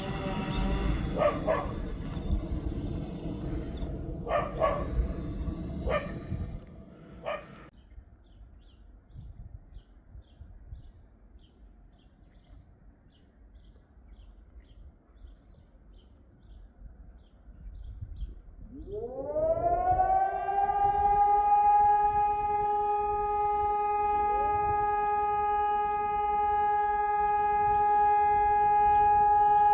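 Hörmann ECI DT 600 electronic civil-defence siren, heard from a distance, starting up for its weekly test. Its tone glides up about two-thirds of the way in and holds steady, and a second tone glides up to join it a few seconds later. During the first several seconds a dog barks.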